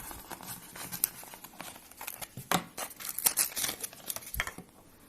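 Close handling noise: crinkling and rustling like paper or plastic wrapping, mixed with small clicks and knocks, that stops shortly before the end.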